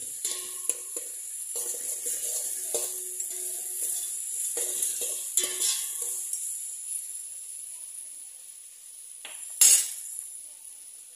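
Sliced onions and ginger-garlic paste sizzling in oil in a stainless steel pot, with a steel spatula scraping and clinking against the pot as they are stirred: a run of strokes over the first half, then quieter, then one loud scrape near the end.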